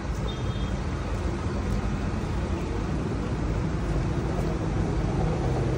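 Steady rumble of vehicle engines and traffic, with a faint hum running through it.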